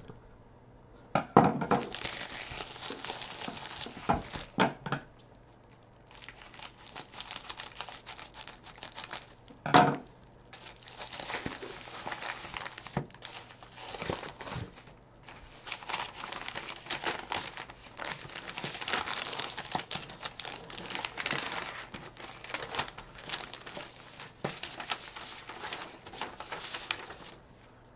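Paper packaging crinkling and rustling as a mailer envelope is handled and its paper wrapping unfolded, in long stretches with a short pause about five seconds in. A few sharp knocks stand out, the loudest about ten seconds in.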